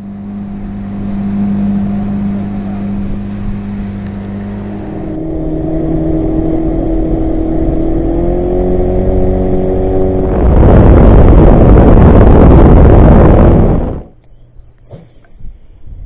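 Outboard motor running a fishing boat at speed, a steady engine note whose pitch rises a little partway through. Near the end a loud rushing noise of wind and water covers it for a few seconds, then cuts off suddenly, leaving only a few faint clicks.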